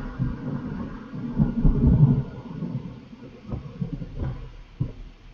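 Gusty wind buffeting the microphone: a low, uneven rumble that is strongest for the first two seconds, then eases off with a few short thumps.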